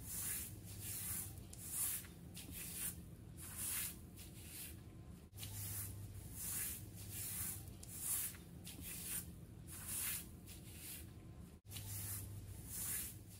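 Footsteps scraping on a sandy path, about three steps every two seconds, over a low steady hum. The sound drops out for a moment twice.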